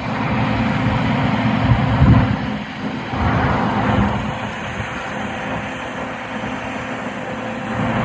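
Case IH 2388 combine harvester working corn, its diesel engine a steady low drone under a rushing mechanical noise that swells briefly about two seconds in and again around three to four seconds in.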